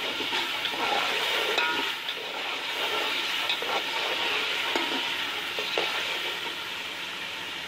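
Spiced onion-tomato and chicken masala frying in oil in a pot: a steady sizzle while a spatula stirs it, with a few sharp clicks of the spatula against the pot. The sizzle grows slightly quieter toward the end.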